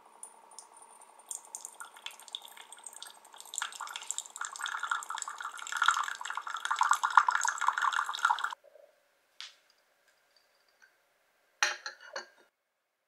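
A countertop drink machine runs a thin stream of water into a porcelain cup over a faint machine hum. The splashing grows louder over several seconds and cuts off suddenly about eight and a half seconds in. A brief clatter follows near the end.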